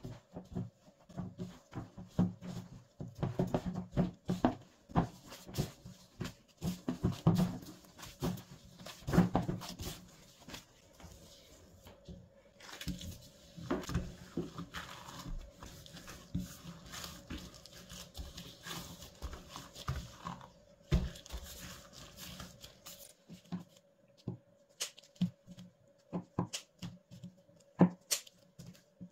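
Gloved hands working bread dough: irregular squishing slaps and knocks as it is mixed in a glass bowl and then kneaded on a silicone mat. Near the end come a few sharp snips of scissors cutting the dough.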